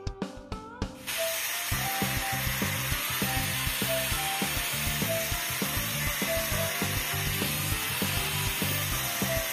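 A hand-held electric power tool working on a steel gate: a loud, steady hiss that starts about a second in, over background music with a steady beat.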